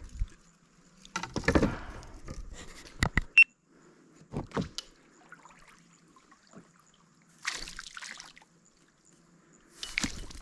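Water splashing and sloshing in irregular bursts, with a few sharp knocks about three seconds in.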